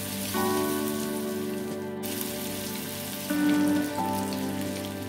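Shami kabab patties sizzling in shallow hot oil in a frying pan, a steady hiss. Background music with sustained notes plays over it, changing chord a few times.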